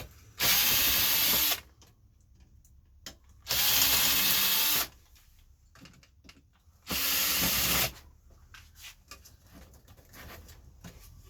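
Cordless drill-driver running in three short bursts of a little over a second each, backing screws out of an old cassette deck. Light clicks and taps come between the runs.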